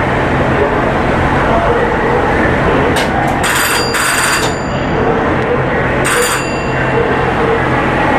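Steady low rumble of the steamship's machinery and propeller wash churning as she backs toward the dock. A bell rings in short bursts about three to four seconds in, and once more just after six seconds.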